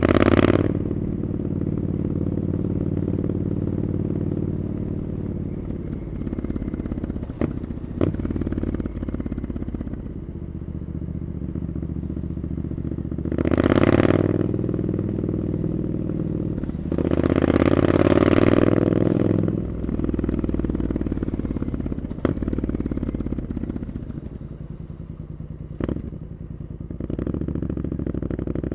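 Triumph Scrambler 900's parallel-twin engine through Arrow exhaust pipes, riding at a steady cruise. It rises in pitch and loudness in three spells of acceleration: right at the start, about 14 seconds in, and again for a couple of seconds around 17 to 19 seconds. A few short sharp clicks come in between.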